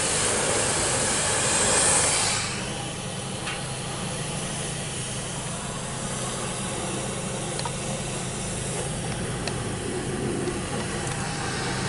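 Steady hiss of high-pressure car wash spray, loudest for the first two seconds or so and then quieter, over a low steady machine hum.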